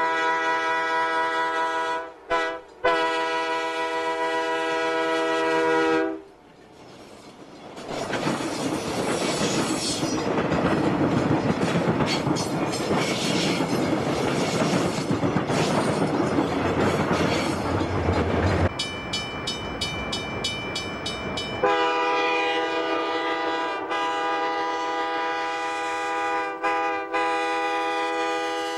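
Diesel passenger train's multi-chime air horn sounding long blasts with short breaks. The train then rumbles past with its wheels clattering on the rails, followed by a fast, regular ringing for about three seconds, and the horn sounds again in long blasts near the end.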